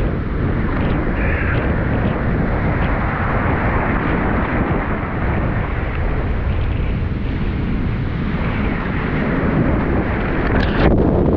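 Breaking ocean surf and churning whitewater rushing around a microphone held at the water surface, with wind buffeting it. The rush swells to its loudest near the end as a wave breaks over.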